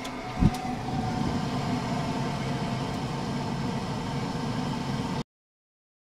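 Gas heater burning with a steady, rumbling hiss, with one loud low thump about half a second in; the sound cuts off abruptly about five seconds in.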